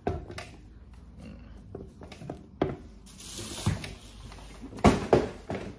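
Handling noise as sneakers are picked up and moved: several sharp knocks and bumps, the loudest near the end, with about a second of rustling about three seconds in.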